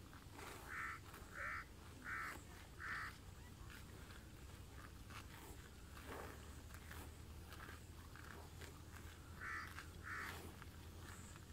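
Water buffalo grazing, tearing and chewing grass with a scatter of crisp rips and crunches. Over it, a short honking call sounds four times in quick succession, and twice more near the end.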